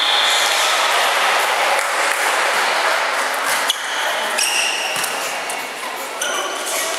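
Volleyball rally in a sports hall: a steady referee's whistle in the first second over crowd noise, then sharp smacks of hands on the ball about halfway through and again near five seconds, with short high squeaks of shoes on the court floor.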